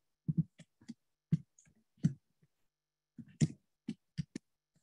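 Computer keyboard keys being typed, an irregular run of short clicks in small clusters as an email address is entered.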